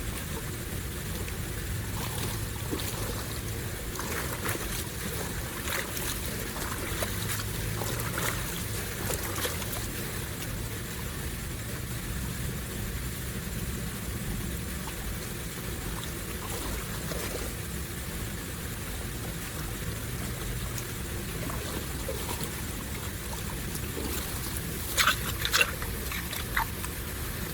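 Water running and trickling over a steady low rumble, with scattered small ticks. Near the end come a few sharp, loud clatters.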